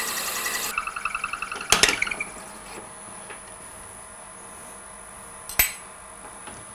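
Drill bit boring into a spinning wooden pen blank on a wood lathe, then a brief pulsing squeal as the bit is cranked back out of the hole. There is a sharp knock about two seconds in and another near the end, over a faint steady hum.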